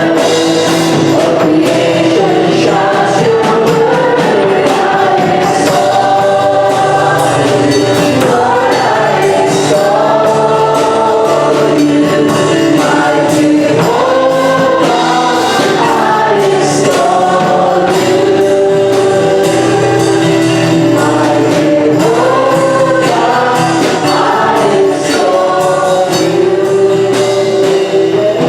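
A choir singing a gospel worship song over steady instrumental backing.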